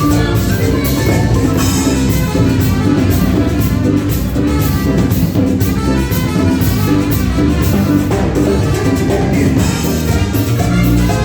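Live band playing an upbeat Latin dance tune, with drum kit and percussion keeping a steady beat under melodic instruments.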